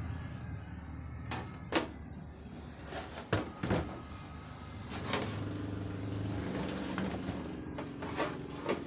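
Handling noise from the recording device being carried around the stacked equipment: rubbing and clothing rustle over a low rumble, with several sharp clicks and knocks scattered through.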